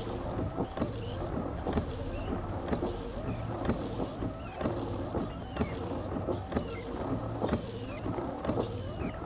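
Car windshield wipers sweeping across the glass, knocking about once a second with short squeaks of rubber on glass, over a steady low hum.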